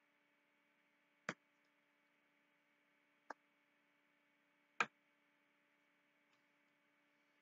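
Three sharp taps in near silence, about a second in, a little past three seconds and just before five seconds, the last the loudest, over a faint steady hum.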